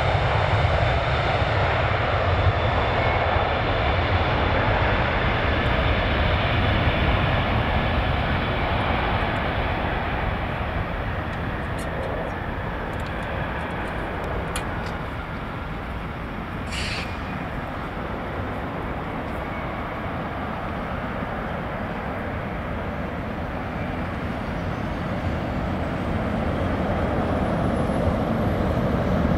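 Boeing 747's four jet engines at takeoff power on the takeoff roll and liftoff, a steady, loud jet noise. It eases off through the middle and swells again near the end.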